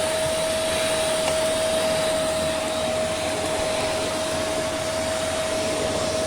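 Black and Decker bagless vacuum cleaner running steadily as it sucks up rubbish: a rush of air with a steady motor whine.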